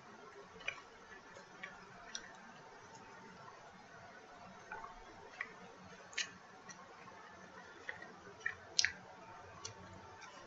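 Quiet chewing of pizza close to the microphone: irregular short mouth clicks over a faint hiss, with the strongest pair near the end.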